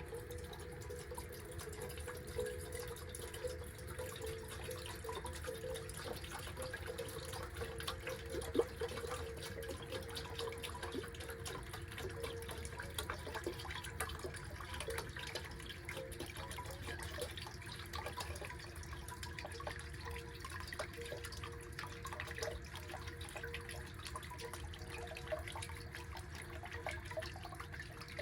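Water heating for coffee on a wood stove, bubbling and simmering steadily with many small ticks and pops.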